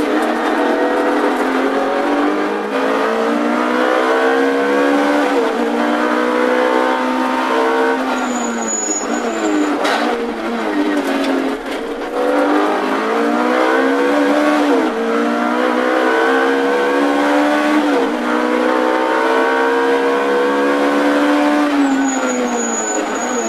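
Ferrari F430 GT3's V8 engine at racing speed, heard from inside the cockpit: its pitch climbs through the gears with a sharp drop at each upshift. About ten seconds in it winds down through downshifts under braking, then pulls back up through the gears.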